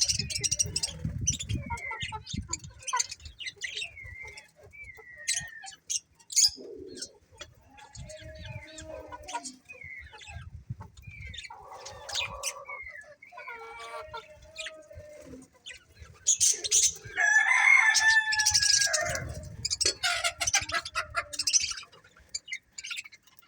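Small birds chirping in short calls throughout, with a rooster crowing loudly in one long, drawn-out call about two-thirds of the way through.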